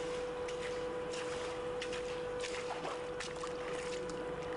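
Water running and trickling over a flooded tunnel floor, with scattered short splashes and a thin steady hum underneath.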